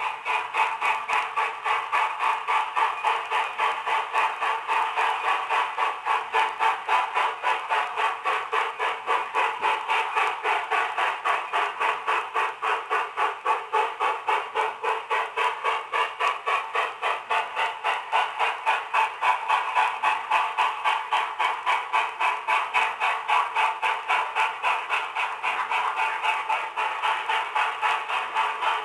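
Nickel Plate Road 2-8-4 Berkshire steam locomotive working hard at speed, its exhaust beating in a fast, even rhythm of chuffs. The recording is thin, with no bass.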